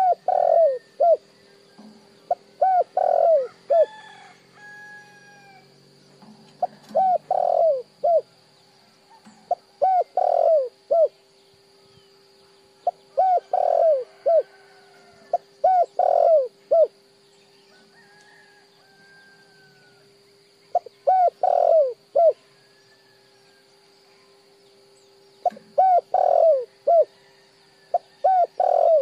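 Spotted dove cooing: short phrases of several low coo notes, repeated every two to three seconds, with a longer pause partway through. A faint steady hum runs underneath, with a few faint high chirps from other birds.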